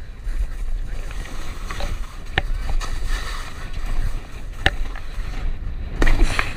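Skis sliding and scraping over snow at speed, with wind rumbling on the camera's microphone. Two sharp clicks cut through, about two and a half and four and a half seconds in.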